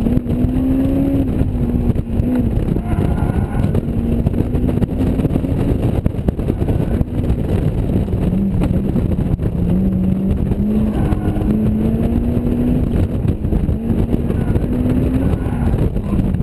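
Honda S2000's four-cylinder engine pulling hard under load, its pitch rising and falling again and again as it accelerates and lifts off, with dips about two, eight and ten seconds in. Heavy wind rumble in the open cockpit runs under it.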